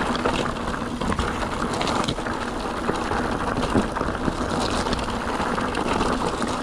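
Mountain bike rolling over a rough track: steady tyre and wind noise, with frequent small rattles and clicks from the bike.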